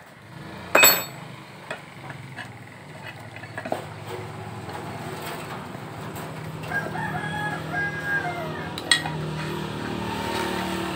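A rooster crows once in the background, about seven seconds in, with chickens clucking around it. Small metal clicks and taps of tools on the motorcycle's stator cover, a sharp one near the start, sit over a low steady hum.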